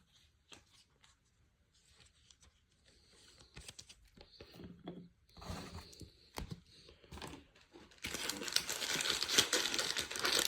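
A Topps Chrome Jumbo baseball card pack's wrapper being handled and torn open. Soft clicks and rustling build up, and from about eight seconds in the tearing and crinkling become loud and dense.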